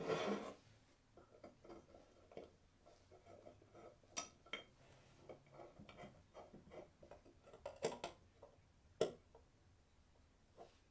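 Small steel parts of a hand plane clinking and tapping as they are handled, in a string of light irregular clicks with a few sharper knocks, the loudest about nine seconds in. A brief scraping rush comes right at the start.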